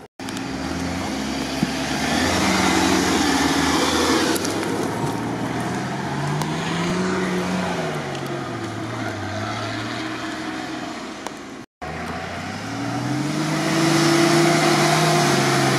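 Off-road 4x4 engines revving up and easing off as they climb steep sandy slopes, the pitch rising and falling several times; the sound breaks off briefly twice. Near the end a UAZ-469's engine revs up the climb.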